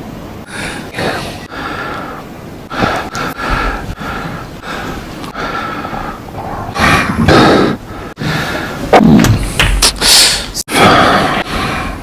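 Snooker commentator breathing heavily close to the microphone: a run of loud breaths, gasps and sighs with no words, some cut off abruptly.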